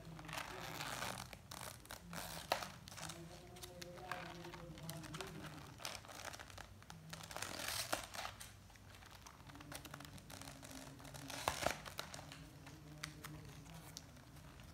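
Stiff paper and card pages of a handmade flap book rustling and crinkling as they are handled and turned, with a few sharp taps, the loudest about eleven and a half seconds in.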